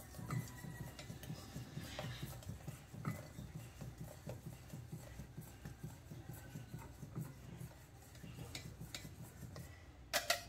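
Wire whisk stirring milk in a steel pot, with a rapid uneven rustle and scattered light clinks of metal on metal. There is a sharper clink a little after ten seconds.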